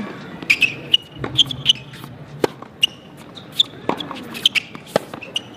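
Tennis rally on a hard court: rackets striking the ball and the ball bouncing on the court in a run of sharp pops, with short high squeaks of tennis shoes on the court surface between them.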